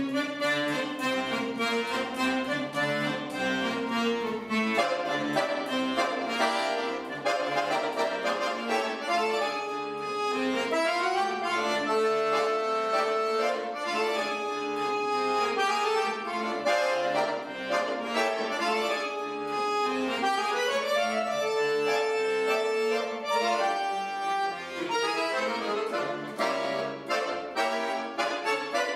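Piano accordion playing a solo piece built on a repeating bass line: quick runs of notes, with a couple of long held notes in the middle.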